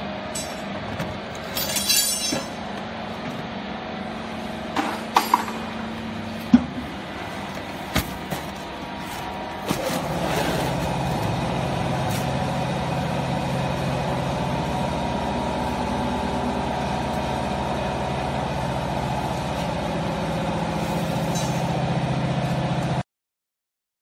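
Metal clinks and a few sharp knocks as the baler's chamber is handled, then from about ten seconds in the steady hum of the household baler's hydraulic pump motor running, which cuts off suddenly near the end.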